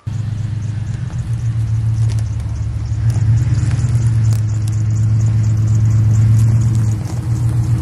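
Dodge Ram 1500 pickup's engine running as the truck is moved slowly at close range. It is a steady low hum that eases briefly near the end.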